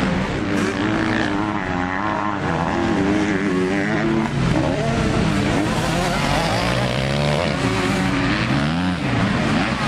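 Several motocross dirt bikes running on the track, their engines rising and falling in pitch as the riders open and close the throttle and shift through jumps and corners, the engine notes overlapping.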